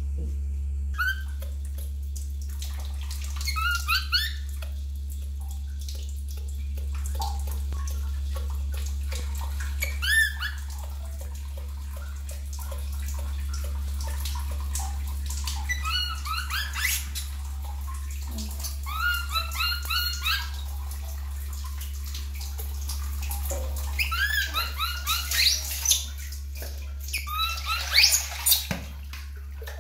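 Baby macaque giving short, high squeaking cries in quick groups of several calls, again and again while being bathed. Water splashes and is poured over it near the end, over a steady low hum.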